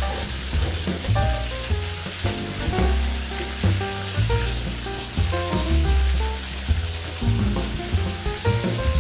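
Halved lobster and langoustines sizzling as they fry in olive oil in a paella pan, the pieces being turned with tongs. Background music with a bass line plays over the sizzle.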